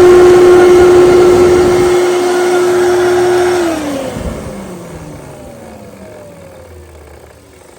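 Kenmore Destiny Plus (rebranded Fantom Thunder) upright bagless vacuum cleaner running with a steady high whine. It is switched off about three and a half seconds in, and the whine falls in pitch and fades as the motor spins down.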